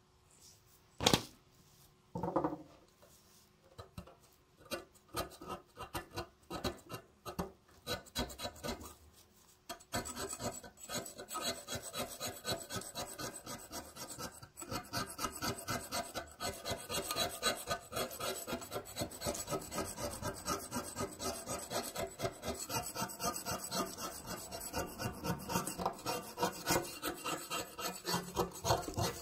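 A wooden stick scraping crusted rust and dirt off a rusty steel sword blade in quick repeated strokes, sparse at first and continuous from about ten seconds in. A couple of sharp knocks near the start.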